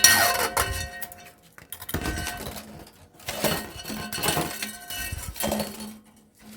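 Metal clinking and ringing as hand tools work against a dismantled electric motor's steel parts to pull out its copper winding: several sharp strikes, each ringing on briefly.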